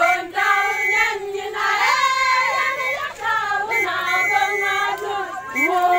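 Women singing together, holding long notes and sliding between pitches.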